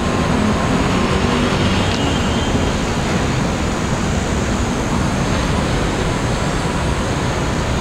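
Steady, loud rushing noise of city traffic with wind on the microphone, with no clear separate event standing out.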